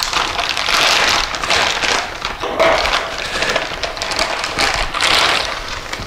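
Rustling and crinkling of packing material and cardboard as a hydraulic valve body is unpacked from its shipping box, in uneven bursts of crackle.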